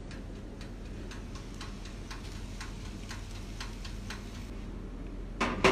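Toaster oven's mechanical timer ticking steadily, about two ticks a second, as the oven bakes. A brief louder sound comes near the end.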